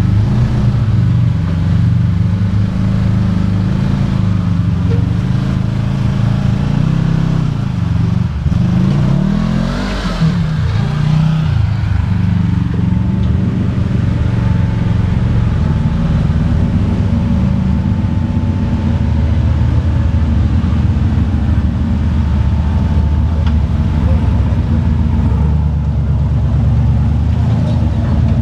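Off-road 4x4's engine running at low revs while crawling over rocks, with the revs rising and falling about eight to eleven seconds in and a brief rough noise near the peak.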